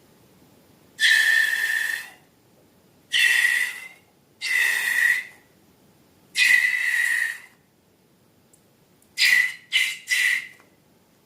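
Air let out of a balloon through its neck in seven short blasts, each a hissing squeal on one steady high pitch; the last three come quickly one after another near the end.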